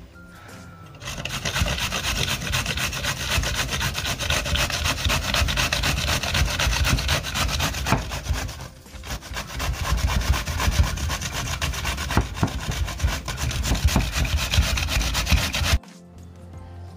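Fresh zucchini being grated on a stainless steel box grater: rapid, even rasping strokes one after another. There is a brief pause about halfway, and the strokes stop abruptly near the end.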